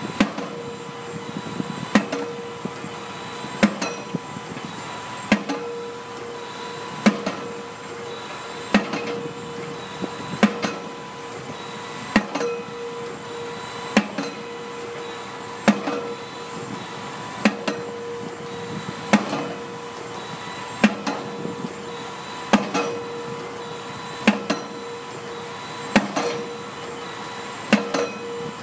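Pile-driving hammer striking a pile in a steady rhythm, one heavy blow about every 1.7 seconds, over the steady drone of the rig's machinery.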